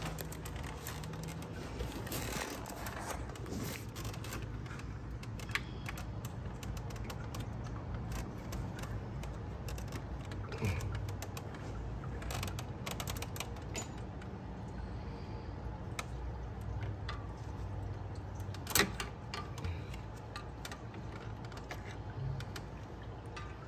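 Scattered small clicks and taps of a hand tool and plastic retaining clips being worked loose at a car's radiator and condenser, with one sharper click about 19 seconds in, over a low steady hum.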